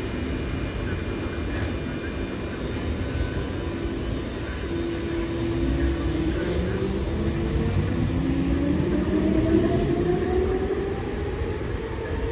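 Electric train accelerating away from a station platform, its traction motor whine rising steadily in pitch from about halfway through over a continuous rolling rumble.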